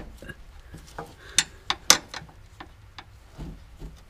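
Irregular metallic clinks and taps of a long screwdriver prying against a socket and the car's suspension cradle, levering the cradle over to centre the bushing mount. The two sharpest clinks come about one and a half and two seconds in.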